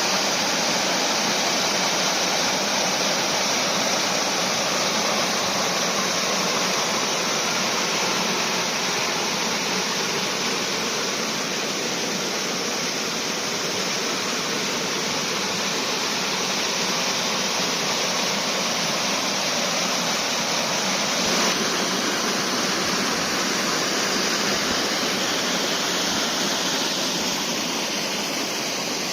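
Waterfall on a moorland river rushing steadily: the even hiss and roar of water pouring over the falls.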